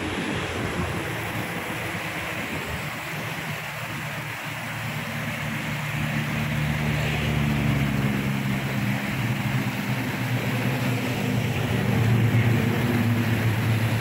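Muddy canal water rushing over a concrete step into white foam, a steady hiss. About six seconds in, a low engine hum from road traffic builds under it and is loudest near the end.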